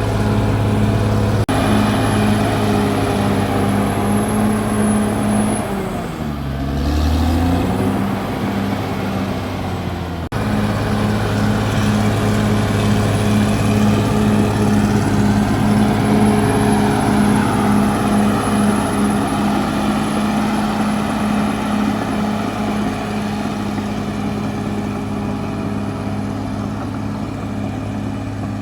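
Caterpillar D6R bulldozer's diesel engine working steadily. About six seconds in the engine note sags in pitch, then climbs back, and a couple of seconds later it cuts abruptly to a steady run again.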